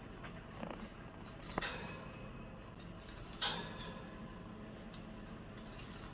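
A caique parrot playing with a metal toy piece, knocking it about so it clinks: a few scattered metallic clinks, the loudest about a second and a half in and another at about three and a half seconds.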